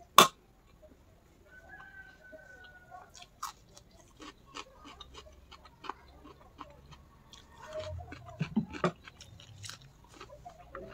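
Close-up chewing and biting of food, a run of small wet, crunchy mouth clicks, with a sharp tap just after the start, like a fork on the plate.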